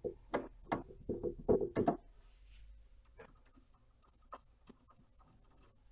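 Hands working on a 3D printer's Y-axis carriage and frame: a quick run of sharp clicks and knocks from plastic and metal parts in the first two seconds, then fainter scattered ticks and scrapes as a screwdriver is set to the screws.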